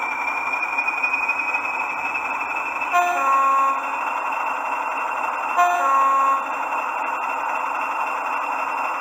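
Hornby TTS sound decoder in an OO gauge Class 40 model locomotive playing its diesel engine sound through a newly fitted, larger speaker, with a high whistle slowly rising in pitch. Two short two-note horn blasts sound about three seconds in and again between five and six seconds in.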